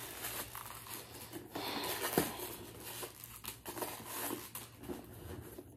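Crinkling and rustling as a new leather handbag and its packing are handled, with a sharp click about two seconds in.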